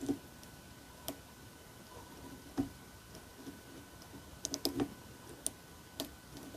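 Pick and tension tool working a Mul-T-Lock Classic pin-in-pin dimple cam lock: scattered small clicks and taps as the tension is pulsed lightly on pins thought to be slightly overset, with a quick cluster of clicks about four and a half seconds in.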